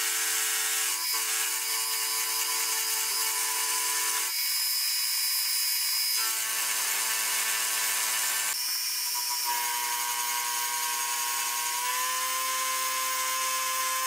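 Milling machine spindle running while an end mill cuts into a cold drawn steel bar: a steady motor whine over a hiss of cutting. The pitch of the whine jumps abruptly several times.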